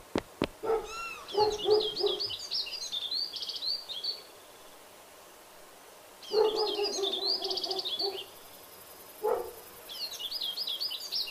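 Cartoon bird sound effects: quick twittering chirps in three bursts, with a lower hooting tone under the first two. A couple of short pops come near the start.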